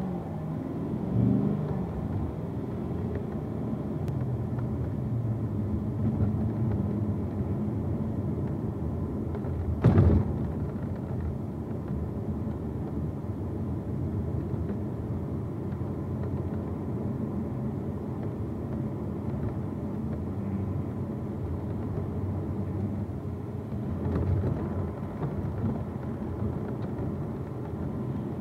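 Chevrolet Corvette C7's V8 engine running, rising in pitch at first, over a steady low road rumble, with one sharp loud knock about ten seconds in and a smaller one near the end. The owner cannot tell whether the rear rattle comes from the sway bar, the brakes or the exhaust.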